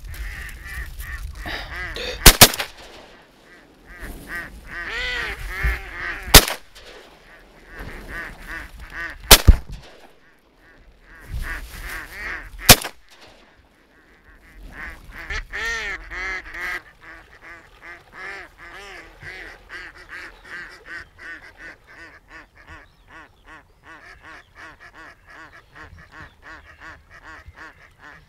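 Ducks quacking repeatedly from the hunters' decoy birds, broken by five or six loud shotgun shots: a quick pair about two seconds in, then single shots around six, nine and thirteen seconds. After that the quacking carries on, fainter and in short, regular calls.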